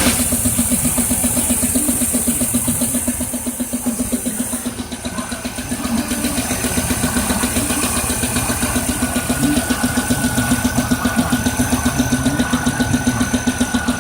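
2002 Pontiac Firebird's 3800 Series II V6 idling with a steady, rhythmic knock. The owner cannot tell whether it is a rod bearing, a lifter or a piston.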